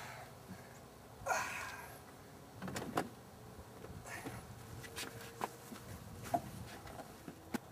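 Faint scattered knocks and clicks, with a short rustle about a second and a half in, from people shifting about in a pickup truck's cab and against its open door.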